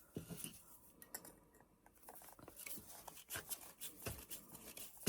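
Faint, scattered small clicks and scrapes as a small metal hook is twisted into a hole in a wooden piece by hand with a tool, the clicks coming more thickly from about two seconds in.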